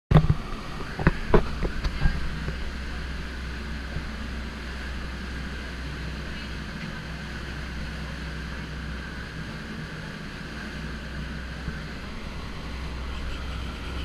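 Dive boat's engine running steadily under way, a low drone, with a few sharp knocks in the first two seconds.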